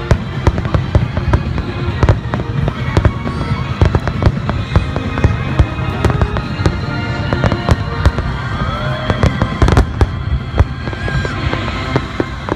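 Aerial firework shells bursting in quick, irregular succession, a dense stream of loud bangs several times a second. Music plays underneath.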